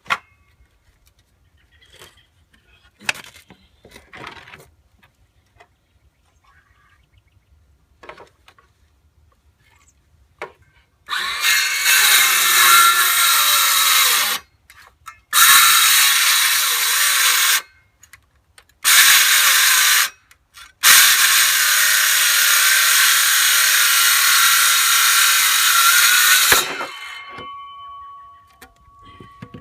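Ryobi 18-volt 5.5-inch cordless circular saw cutting thick, dense MDF in four loud bursts with short stops between them. It keeps stalling, which the owner puts down to a battery that may be a little dead. Before the cutting there are a few clicks and knocks, and after it the sound fades out.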